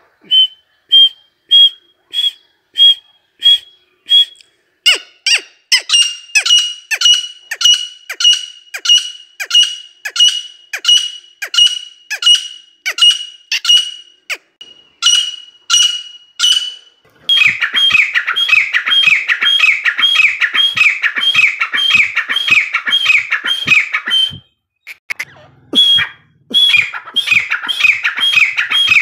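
Female francolin (teetar, a partridge) calling in a long run of short shrill notes, about two a second. Past the middle the calling turns faster and louder with overlapping notes, breaks off briefly, then starts again.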